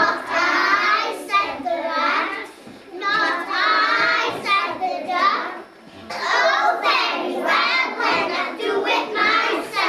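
A class of young children voicing a story together in unison, in rhythmic phrases with short breaks between them.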